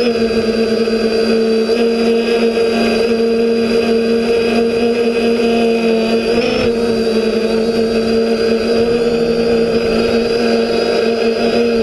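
Brushless motors and propellers of a TBS Discovery quadcopter whining steadily in flight, with a brief rise in pitch about six and a half seconds in.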